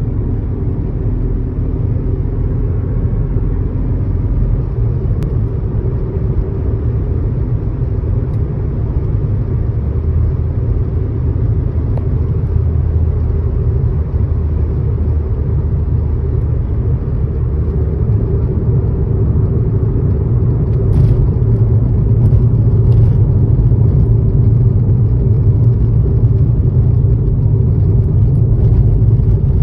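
Steady low rumble of a car's engine and tyres on the road, heard from inside the cabin while driving along a highway. It gets a little louder about two-thirds of the way through.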